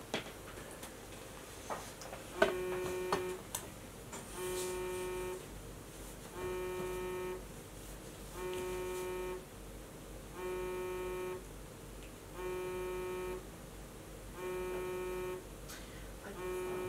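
iPhone ringing with an incoming call: a flat buzzing tone about a second long, repeating every two seconds, eight times.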